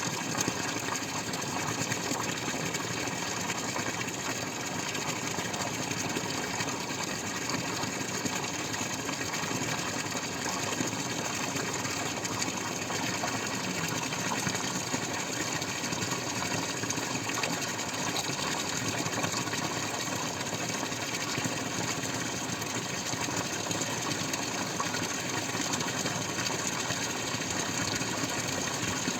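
Water dripping and trickling in a dense, steady stream of small drops, with no pause or change.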